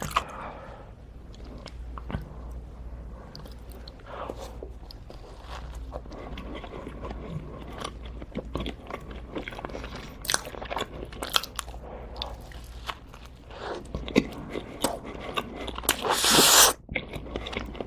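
A person chewing and biting crunchy food, with irregular crunches and wet chewing sounds. Near the end a louder, noisy crunch lasts under a second.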